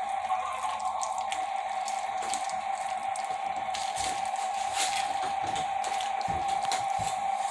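A hand rubbing a mustard slather into a raw brisket lying on plastic wrap: wet squishing and crinkling with many small clicks. Under it runs a steady hum.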